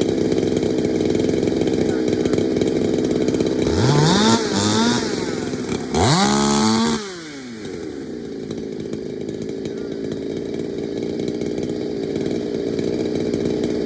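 Two-stroke racing chainsaw of the 5 cube class (81 cc and under) revved twice. First comes a short rising blip about four seconds in, then a full-throttle scream of about a second that drops away, over the steady running of engines in the background.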